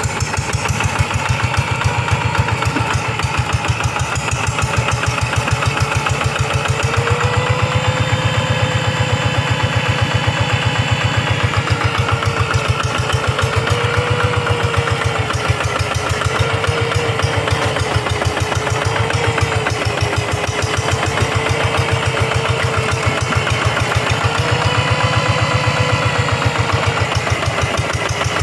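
Two-wheel paddy-field hand tractor's engine running steadily with a rapid, even firing beat. A faint whine rises and falls a few times over it.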